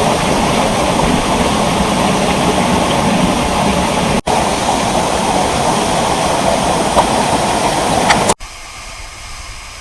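Loud, steady rush of a waterfall. There is a momentary break about four seconds in, and about eight seconds in it drops suddenly to a much quieter rush of water.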